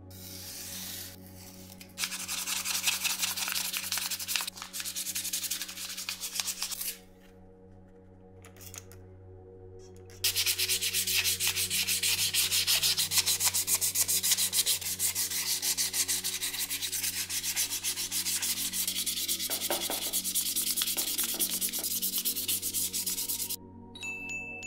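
Hand sanding of a metal buffalo-shaped kettle part with 400-grit waterproof sandpaper: a quick, scratchy rubbing of many short strokes. It runs in two spells, the first about 2 s in for some five seconds, the second from about 10 s until near the end.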